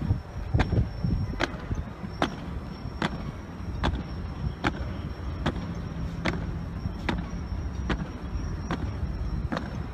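Sharp beats keeping a slow, even marching cadence, about one every 0.8 seconds, for a ceremonial honour guard on parade, over a low rumble of traffic.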